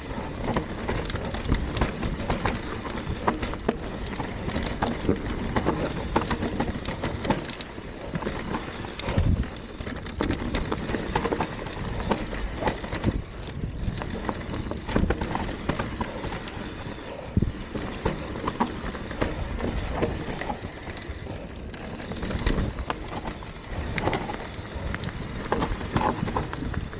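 Mountain bike descending a loose dirt trail: continuous tyre noise over dirt and stones, with frequent knocks and rattles from the bike, picked up by a camera mounted on the bike or rider.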